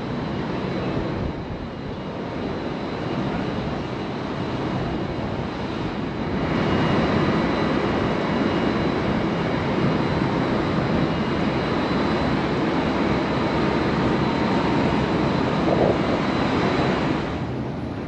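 Wind gusting across an open-air rooftop deck high above the city, a steady rushing noise that strengthens about six seconds in and eases near the end.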